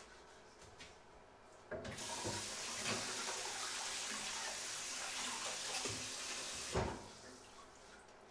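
Kitchen tap running into a sink for about five seconds while a wooden cutting board is rinsed under it, with a few knocks of the board against the sink. The water stops with a knock near the end.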